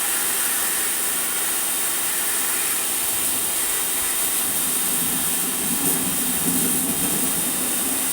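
Electric pressure washer running, its water jet hissing steadily, probably spraying mud out of a washing-machine drum. A lower rumble joins about five seconds in.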